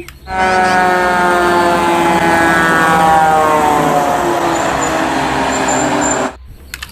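Fire truck sound effect: one loud horn-like tone over a rushing noise, sliding slowly down in pitch for about six seconds, then cutting off abruptly.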